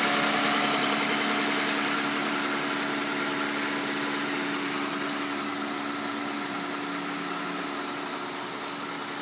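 1986 Chevrolet Sprint's carburetted 1.0 L three-cylinder engine idling steadily, growing gradually fainter. The owner says its carburettor needs rebuilding.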